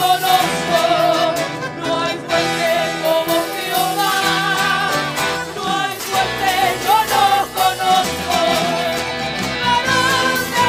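Spanish-language Christian worship chorus: singing over instrumental backing, with the melody wavering and sliding between held notes.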